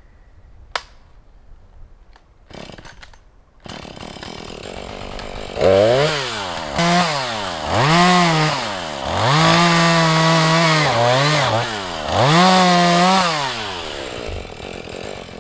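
Two-stroke chainsaw engine: a few light clicks, then the saw comes in running about four seconds in and is revved up and down repeatedly, held at high revs for two long stretches before dropping back toward idle near the end.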